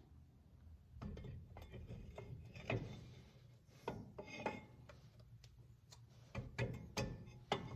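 Metal hand tools and hub parts clicking and clinking in scattered, irregular knocks while the front wheel hub is bolted back on.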